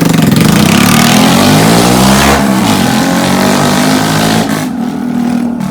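Motorcycle fitted with a new aftermarket silencer revving hard as it rides past, its exhaust note rising and then falling in pitch, fading a little near the end.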